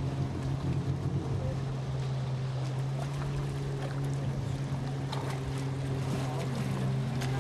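Motorised watercraft engine running at a steady speed: a constant low drone with no change in pitch, over a hiss of rushing air and water.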